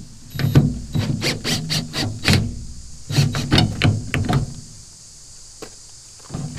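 Cordless drill backing screws out of a sheet-metal gauge panel. The motor runs in two bursts of about two seconds each, with sharp clicks, and stops about four and a half seconds in.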